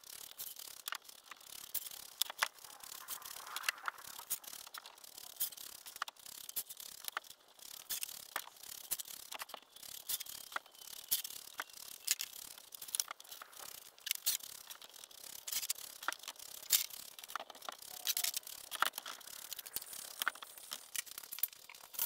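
Dry pine boards being handled and stacked, with scattered light clacks and knocks of wood against wood.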